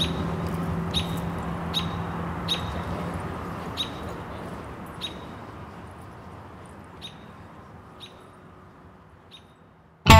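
Outdoor ambience fading out: a low hum and background noise under single short high chirps of a bird, roughly one a second at irregular spacing. Loud rock music with guitar cuts in abruptly at the very end.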